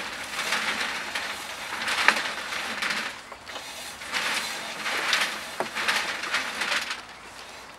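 Homemade compost trommel being turned by hand: compost tumbling and sifting inside the rotating half-inch hardware-cloth drum, in repeated uneven rustling bursts.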